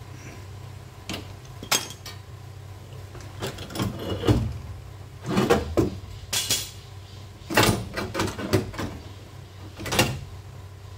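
Irregular metallic clicks and clatter of locking clamps and a sheet-steel patch panel being handled and adjusted against a car's mudguard, over a steady low hum.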